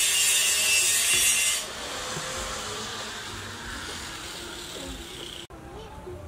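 Steady high-pitched insect buzzing that cuts off abruptly about a second and a half in, leaving a quieter outdoor background with faint chirps and soft knocks from the fish tray being handled.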